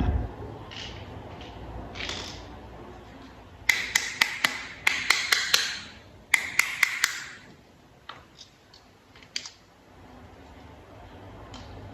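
Small plastic toy parts clicking and tapping as they are handled and fitted together: three quick runs of sharp clicks partway through, with a few fainter single taps before and after.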